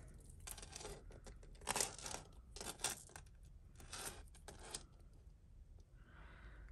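Metal costume-jewellery chain handled between the fingers, giving light, irregular clinks and rustles in short clusters as the links and beads knock together.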